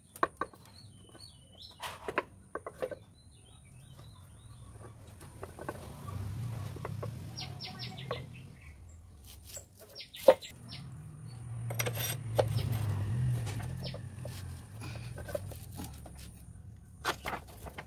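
Scattered sharp metal clicks and clinks of a motorcycle roller chain and tools being handled at the rear sprocket. Bird calls sound in the background, and a low rumble swells and fades twice.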